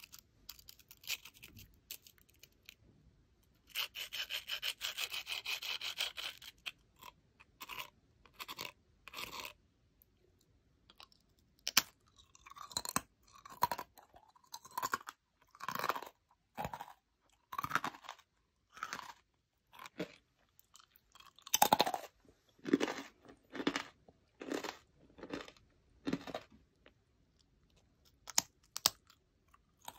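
Thin, crisp coconut crackers being handled and eaten: some crackling at first, then crunchy chewing, about one crunch a second, with a few crunches louder than the rest.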